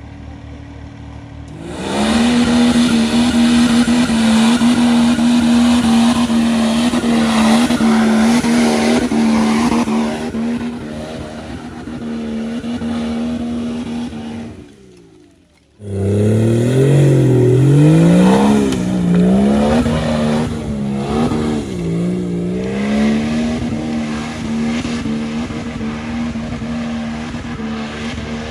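BMW M57 twin-turbo inline-six diesel in a Nissan Patrol, held at high revs under heavy load on a steep climb. It cuts out abruptly for about a second halfway through, then comes back with the revs rising and falling repeatedly.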